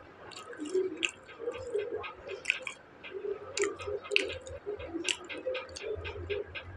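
A man chewing onion pakoda, fried onion fritters, close to a clip-on microphone. Wet mouth sounds with many quick, irregular clicks.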